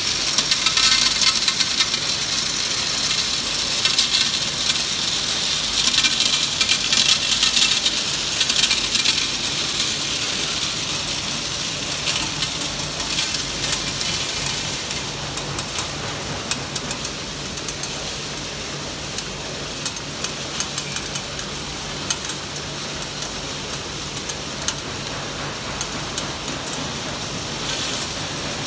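Hard candies clattering on the rotating stainless feed disc of an MWCA Mini Wrap candy wrapping machine, a dense rattle of many small clicks, with the machine's motors running beneath. The rattle is loudest in the first ten seconds or so and eases off, and a steady low hum from the machine is clearer after that.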